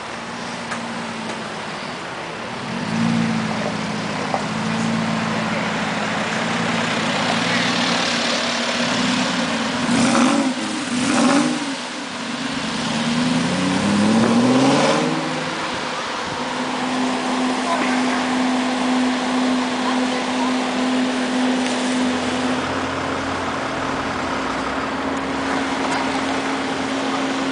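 Aston Martin AMV8 Vantage's straight-piped V8 idling, then blipped sharply twice about ten seconds in and revved up and back down once more, before settling to a steady idle.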